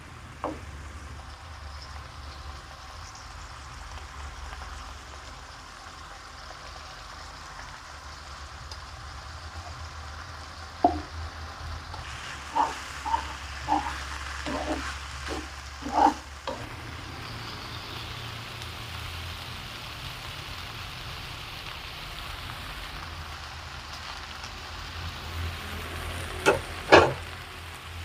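Instant noodles and vegetables sizzling in a nonstick wok over a gas flame, stirred and tossed with a spatula. The spatula clacks sharply against the pan several times about halfway through, and twice more near the end.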